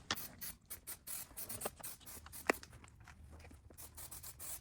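Faint, irregular scraping and rustling as headliner material is worked into place, with one sharp click about two and a half seconds in.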